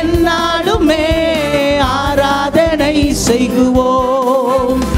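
Tamil Christian worship song: a voice holding long notes with vibrato over musical accompaniment.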